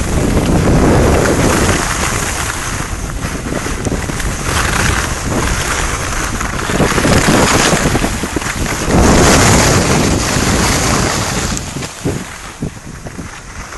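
Wind rushing over the microphone of a camera carried by a skier going downhill, mixed with the skis running over groomed snow. The rush swells and fades, and drops off about twelve seconds in.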